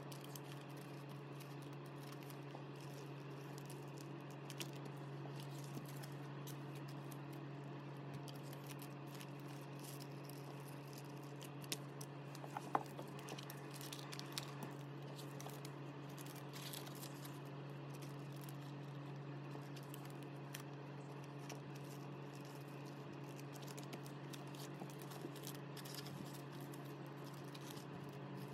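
Faint rustling and crinkling of clear plastic binder sleeves and paper photocard inserts being handled, with a few sharper clicks near the middle, over a steady low hum.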